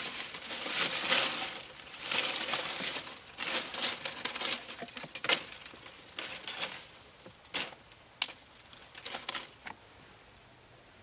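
Dry leaves crushed and crumpled by hand, a dense rustling crackle, followed by scattered snaps and clicks as dry sticks are laid into a fire lay; a sharp click about eight seconds in is the loudest, and the sounds stop shortly before ten seconds.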